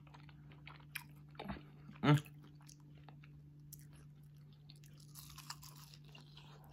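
Close-up chewing and biting of crispy battered fried chicken wings, with small scattered crunches and mouth clicks. A short, falling hum of the voice comes about two seconds in.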